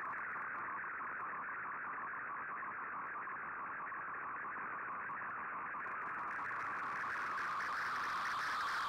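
Shortwave digital-mode picture transmission received on 15770 kHz through an Icom IC-R8600 in AM: an MFSK image signal heard as a steady, rapidly warbling tone band, the sound of a picture being sent line by line. Radio hiss rises behind it about six seconds in.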